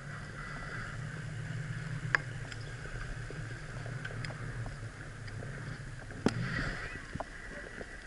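Steady rolling noise of a bicycle ridden on a paved road, with a few sharp clicks and rattles, one about two seconds in and a louder one a little after six seconds.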